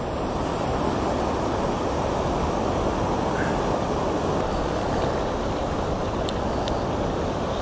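Steady rush of river water pouring over a low weir and running fast past the bank, with a few faint ticks near the end.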